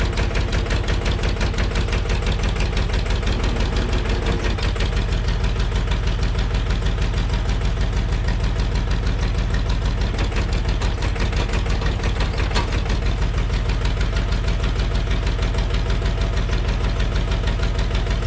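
Massey Ferguson backhoe's engine idling steadily, with an even rapid pulse.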